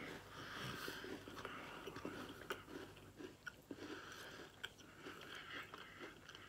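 A person chewing a hard dark chocolate Nantucket cookie, with faint, irregular crunches.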